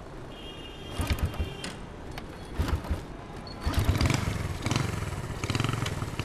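Motorbike engine being started: short cranking bursts about a second in and again near three seconds, then it catches and runs unevenly, settling toward a steady run near the end.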